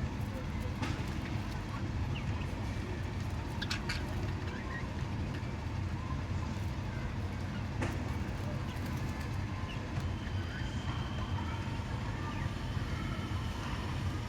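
Budgerigars giving short, scattered chirps, with a few sharp clicks, over a steady low rumble in the background.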